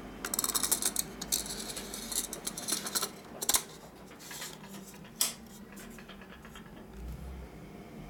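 Plastic bayonet lens hood being twisted onto the front of a Nikon 24-70mm f/2.8 zoom lens: a quick run of scraping, ratchety clicks for about three seconds, then a sharp click a little later and another about five seconds in as it seats.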